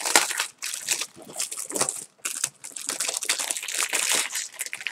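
Clear plastic packaging bag crinkling and crackling in irregular bursts as hands grip and work it open.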